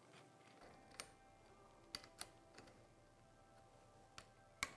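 Near silence with a handful of faint, sharp metallic clicks from a hex driver working the handlebar clamp bolts as they are snugged down, the sharpest click near the end, over faint background music.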